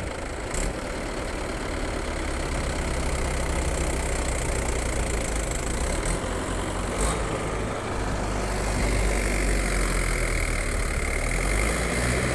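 Mahindra tractor's diesel engine running steadily under load while dragging a rear blade through loose soil, getting louder about two-thirds of the way through, with a few short clicks.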